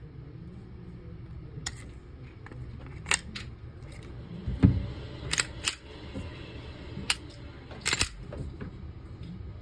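Glock G23 Gen5 pistol being handled: a string of about nine sharp metallic clicks and clacks as its slide and action are worked by hand. The loudest is a heavier clack near the middle.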